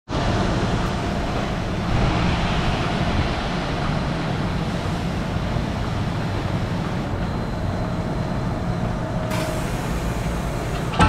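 Steady low mechanical drone of dairy barn machinery, with a faint thin whine joining for a moment about eight seconds in.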